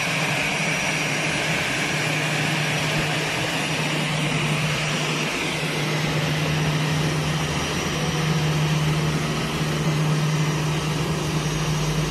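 Airbus A321 jet airliner's engines running at idle: a steady rush with a low hum and a high whine that fades about halfway through.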